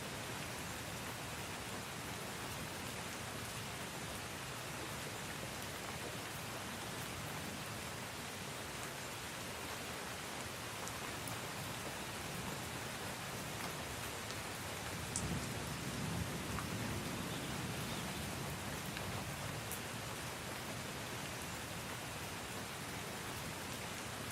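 Steady rain falling, with a few scattered drop ticks and a low rumble of thunder about fifteen seconds in.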